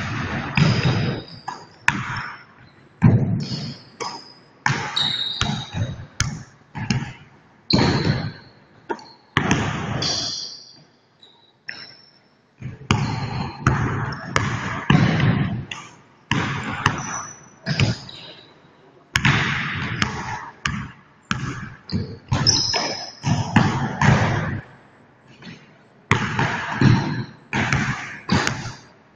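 Basketball dribbled and bounced on a hardwood gym floor, in quick runs of sharp bounces broken by short pauses, with brief high squeaks of basketball shoes on the court.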